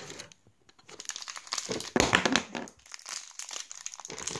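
Plastic toy packaging crinkling and crackling as it is handled and unwrapped, after a brief lull about half a second in, loudest around two seconds in.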